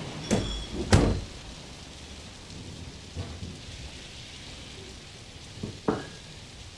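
Steady rain during a thunderstorm, with a few sharp knocks of drops or drips striking something close by, the loudest about a second in and another near the end.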